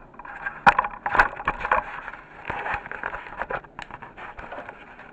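Irregular clicks, knocks and scraping of something being handled and moved, loudest about a second in, then thinning out.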